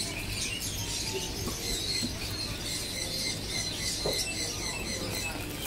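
Background ambience: faint high chirping over a steady low hum, with a soft knock about four seconds in.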